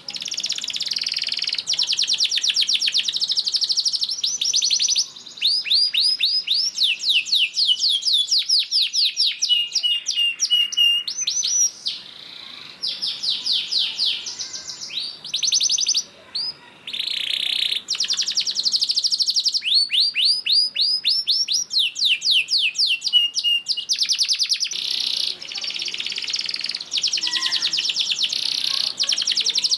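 Domestic canary singing long, fast rolling trills ('ngerek'), one run of rapidly repeated notes after another with only a few short pauses.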